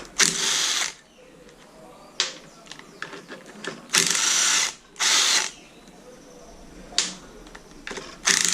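Power driver with a 10 mm socket spinning out the four clutch bolts, in four short bursts of under a second each, with a few sharp clicks between them.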